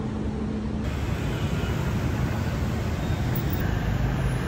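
City street traffic noise, a steady rumble of passing vehicles. A steady hum drops out abruptly about a second in, where the recording changes to another stretch of street.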